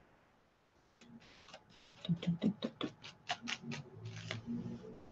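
Paintbrush scrubbing a wet medium across a paper journal page: a run of short scratchy strokes, about three a second, starting about a second in.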